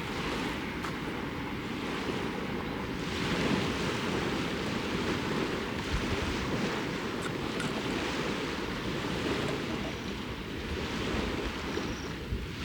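Small waves washing up on a lakeshore in a steady rush that swells and eases, with wind buffeting the microphone.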